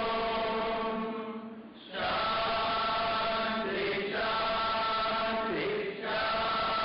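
Voices chanting a devotional prayer in unison, in long held notes; a new phrase starts about two seconds in, another near four seconds and another near six.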